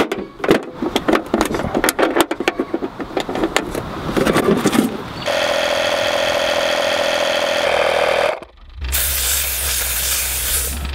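Clattering of a tire plug kit and hand tools being handled for about five seconds. Then a steady mechanical hum from an air compressor for about three seconds and, after a short break, a loud hiss of air through the air chuck as it inflates the freshly plugged tractor tire.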